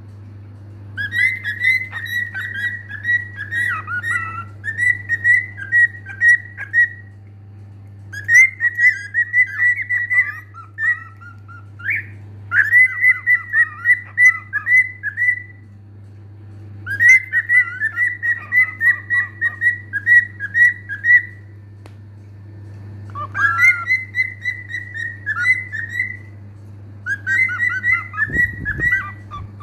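Cockatiel whistling its song: phrases of quick, chirpy whistled notes at one high pitch, each run lasting several seconds with short pauses between them.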